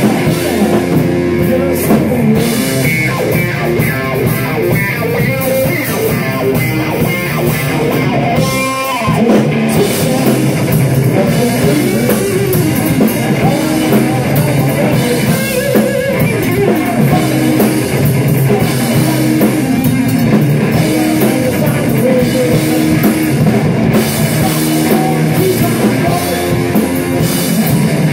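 A blues-psychedelic rock trio playing live, with electric guitar over a drum kit.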